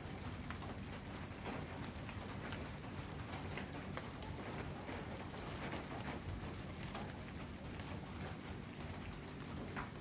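Steady rain falling, with many separate drops tapping on hard surfaces, over a low steady rumble.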